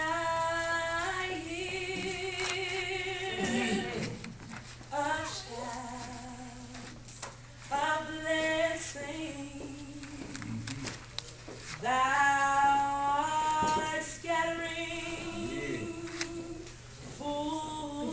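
A woman singing a gospel song solo and unaccompanied, in phrases of long held notes, some with vibrato, broken by short breaths.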